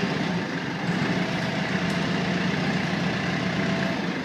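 Glass-bottom boat's engine running steadily, a constant low drone with hiss over it.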